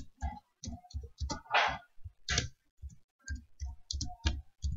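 Computer keyboard keys being typed, an irregular run of short clicks.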